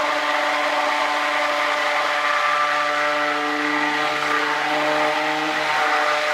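Handheld immersion (stick) blender running steadily with a motor whine, mixing cold-process soap batter toward trace. Its pitch shifts a little about halfway through.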